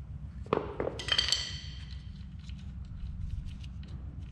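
Metal tools clinking at an engine: a dull knock, then a short ringing metal clink about a second in, as the improvised chain-and-drill-bit puller is taken off the oil pump. A few faint ticks follow over a low steady hum.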